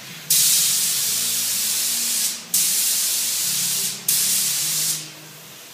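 A Sagola touch-up spray gun with a 1.0 mm tip spraying paint in three trigger pulls: a loud hiss that starts and stops sharply, about two seconds, then a second and a half, then one second.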